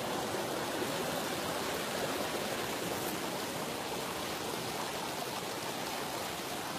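Shallow river running over rocks: a steady rushing of water.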